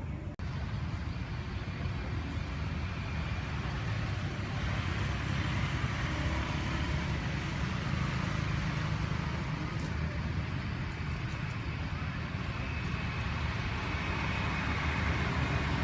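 Steady outdoor background noise with a strong low rumble, and a brief dropout about half a second in.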